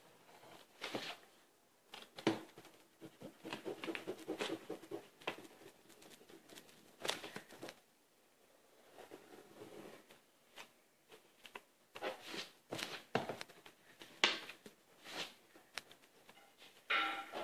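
Pencil scratching across paper in short, irregular strokes, with occasional sharp clicks and taps from the paper and hands.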